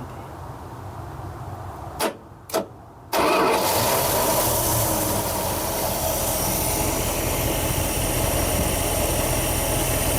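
1976 Dodge D200 engine starting on its newly fitted starter and fuel pump: two sharp clicks, then a little over three seconds in the engine catches and settles into a steady idle.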